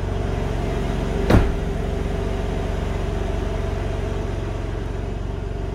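BMW M3 (G80) S58 twin-turbo straight-six idling steadily, heard from inside the cabin. One sharp knock sounds about a second in.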